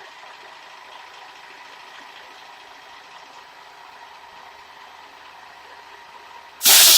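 Steady mechanical hum with a faint steady whine. Near the end, a sudden loud hissing rush breaks in.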